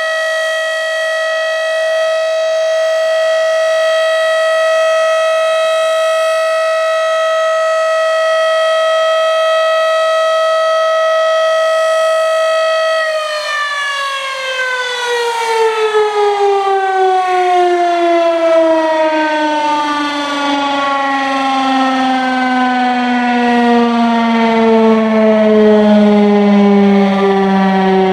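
Federal Signal Model 5B electromechanical civil defense siren sounding a loud, steady Alert tone. About thirteen seconds in, its pitch starts falling in a long, smooth glide as the siren winds down at the end of the two-minute Alert signal.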